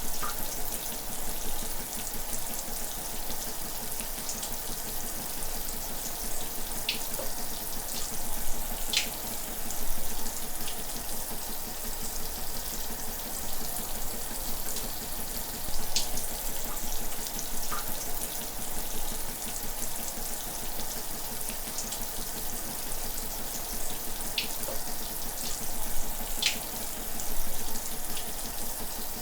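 Shower running steadily: an even hiss of falling water, with a brief splash every few seconds.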